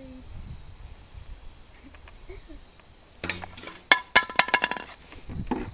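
Handling noise: a quick run of sharp knocks and clinks, some ringing briefly, about three seconds in, as gear is handled beside the air cannon and a plastic bucket. Before it, only a faint steady hiss.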